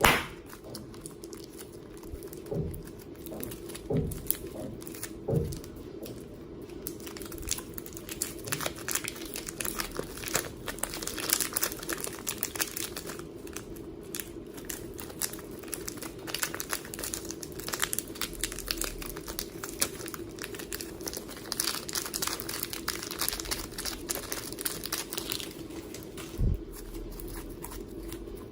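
Slime being squeezed and worked by hand: dense, rapid crackling and crinkling clicks, busiest through the middle. A few soft thumps come near the start and one near the end, over a faint steady hum.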